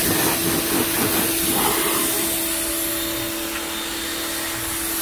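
Greenworks 1.2 GPM electric pressure washer running with a steady hum, its jet of water hissing as it blasts caked dirt off a van's bumper and rear panels.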